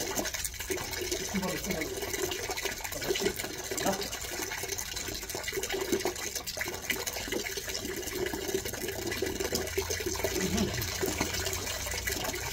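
Water running steadily, as from a tap filling a basin.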